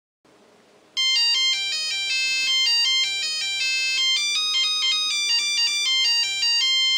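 Nixie clock's buzzer playing a ringtone-style melody: a quick run of electronic beeps, one note at a time and changing in pitch, starting about a second in and cutting off suddenly near the end.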